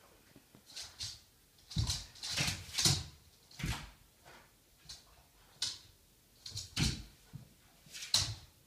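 A Boston Terrier's paws and claws knocking and scrabbling on a hardwood floor and against a wall as it jumps up at the wall: about a dozen short, irregular thumps.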